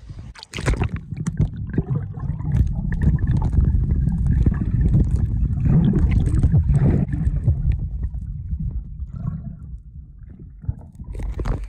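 Swimming strokes heard through a phone's microphone held underwater: a muffled, low churning and sloshing of water, loudest in the middle and dying down near the end.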